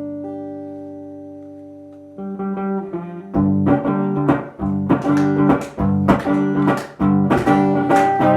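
Instrumental passage of a song played live on guitar, no singing: a chord is left ringing and slowly fades, then a little over two seconds in new notes enter and soon after steady rhythmic strumming takes over.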